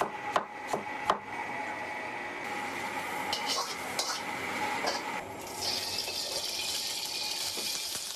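A cleaver chopping bamboo shoot slices on a wooden chopping block, about four quick knocks in the first second or so. Steady kitchen noise follows, and from about five seconds in a brighter hiss of frying in a wok.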